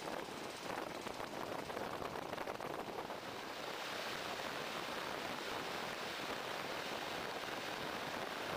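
Wind and wheel-on-rail noise from a moving diesel train, heard through an open carriage window. From about three and a half seconds in, another train passing close on the adjacent track adds a steady, louder rushing.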